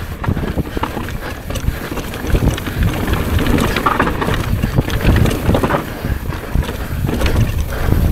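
Wind buffeting the microphone over a continuous rumble, with frequent sharp rattles and clicks from the ride over rough ground during a fast downhill run.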